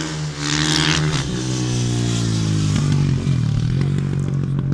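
A motorcycle passing at speed on a racetrack straight, a brief rush of noise as it comes by, then its engine note falls in pitch as it moves away.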